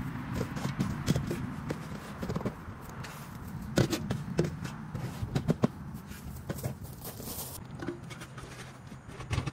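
Footsteps and rustling through grass and dry leaves, with scattered sharp knocks and scrapes as old pine-shaving chicken litter is tipped into a wooden compost bin and a scoop shovel is handled. The loudest knocks come in a cluster about four to six seconds in.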